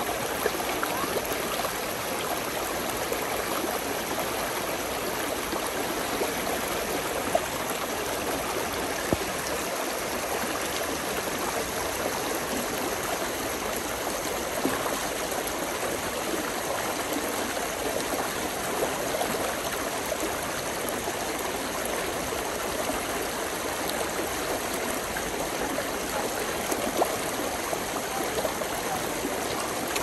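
Mountain stream running and gurgling in a steady rush, with a few brief louder splashes.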